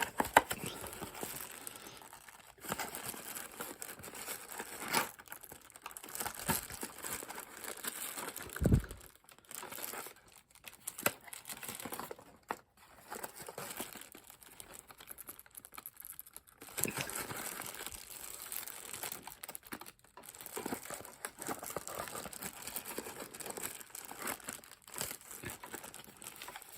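Packaging rustling and crinkling in irregular bursts as an indoor TV antenna and its parts are unpacked from the box, with a dull thump about nine seconds in.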